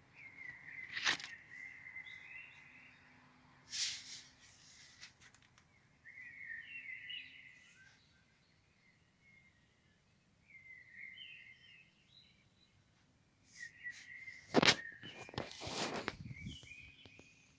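A bird singing short twittering phrases that repeat every few seconds, over faint outdoor background noise. Several sharp knocks and rustles cut in, the loudest about two-thirds of the way through, as the phone brushes against the leaves.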